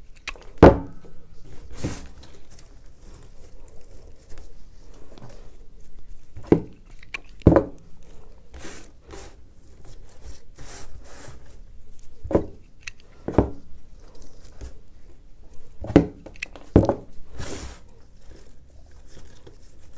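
Hands work stiff fir branches into floral foam: needles rustle and stems scrape and rub. Sharp knocks on the wooden work surface break in every few seconds, mostly in pairs about a second apart.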